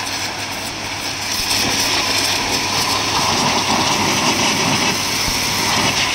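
Electric high-pressure washer pump running with a steady hum while its thin water jet hisses and spatters against the muddy metal of a tractor's rotavator.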